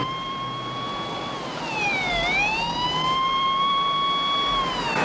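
Police car siren wailing: a held tone that dips and climbs back about two seconds in, then holds again and starts falling near the end.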